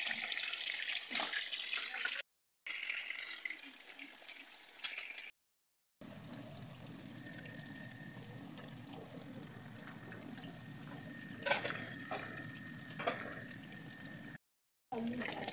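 Fish pieces sizzling and crackling in hot oil in a frying pan. The sound cuts out completely three times, and after the second cut the sizzle is quieter over a low hum, with a few sharp clicks near the end.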